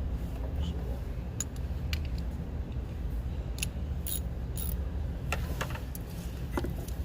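Metal hand tools clinking: a 15 mm socket and wrench tapping against the alternator bolts, several short separate clinks spread irregularly. A steady low rumble runs underneath.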